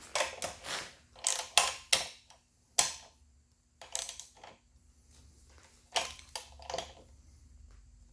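Hand tools clinking and rattling against the minibike's metal front fork clamps and bolts, in irregular bursts of sharp clicks and knocks that stop about seven seconds in.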